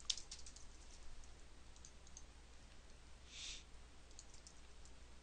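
Faint computer keyboard keystrokes and mouse clicks: a quick run of light clicks at first, then a few scattered clicks later, with a brief soft rustle about three and a half seconds in.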